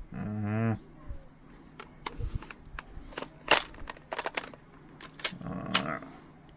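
Airsoft M4A1 replica being handled in a reload: a series of sharp plastic-and-metal clicks and clacks, the loudest about halfway through, preceded by a short wavering pitched sound.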